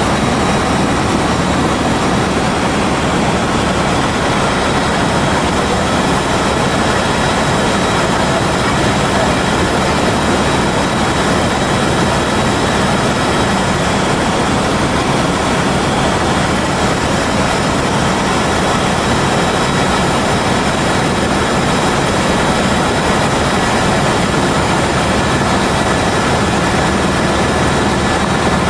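Helicopter engine and rotor noise heard inside the cabin in flight: a loud, steady drone with a faint thin high whine running through it.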